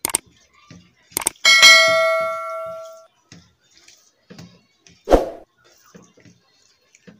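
Subscribe-button sound effect: quick mouse clicks, then a bright bell ding that rings out for about a second and a half. A separate sharp knock about five seconds in.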